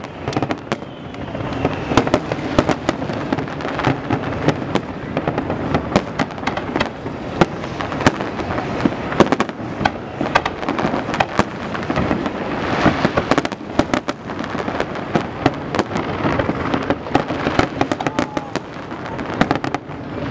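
Aerial fireworks shells bursting in a dense, irregular barrage: many sharp bangs in quick succession over a continuous crackle.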